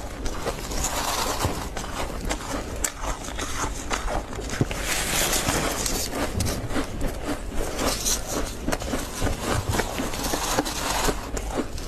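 Freezer frost being scooped with a plastic scoop and chewed: a dense, continuous crunching and crackling made of many small sharp ticks.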